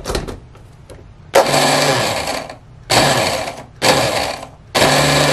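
Braun immersion blender motor driving its mini food processor attachment, run in four short pulses to grind dry cheese balls down to a powder. A click as the motor is seated comes first, and the last pulse is the longest.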